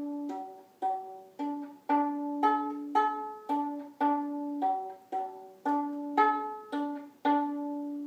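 Viola played pizzicato: a simple melody of single plucked notes, about two a second, each ringing briefly before the next.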